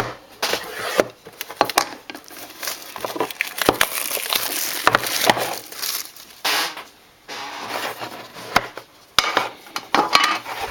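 Packaging of a trading-card hobby box being opened and handled: irregular crinkling and rustling of wrapper and cardboard, with sharp clicks and snaps.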